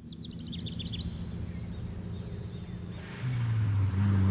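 Intro of a rock song recording: a low droning hum with a quick run of high chirps at the start, then a sustained low note that swells in about three seconds in and grows louder near the end.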